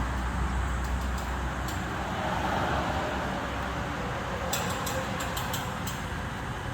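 Electric radish-shredding machine running steadily, with a cluster of sharp clicks a little over halfway through.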